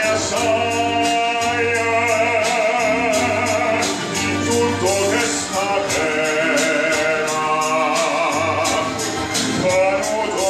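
A male operatic tenor singing through a microphone with vibrato, over an instrumental accompaniment with steady low bass notes.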